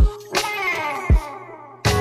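Background music: a plucked, guitar-like melody over deep drum hits, with a run of notes falling in pitch from about half a second in.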